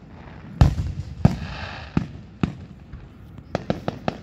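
Aerial firework shells bursting. A heavy boom about half a second in and another just after a second, the second followed by a crackling hiss. More bangs follow, then a quick run of sharp cracks near the end.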